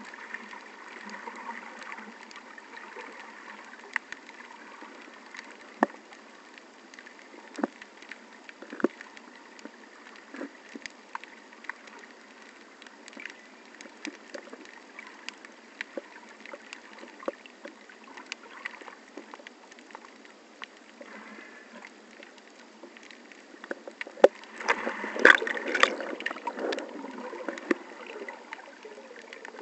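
Muffled underwater water noise heard through a camera's waterproof housing while snorkeling, with scattered sharp clicks throughout. A louder rush of water noise comes about 25 seconds in.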